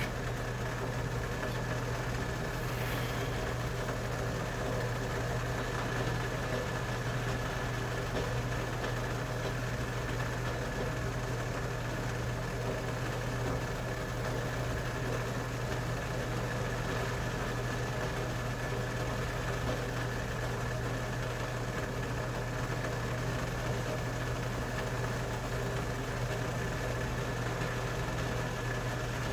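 Steady low machine hum that holds unchanged throughout.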